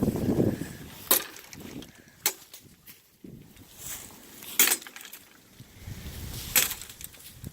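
Four sharp knocks on wood, spaced one to two seconds apart, with faint wind rumble between them.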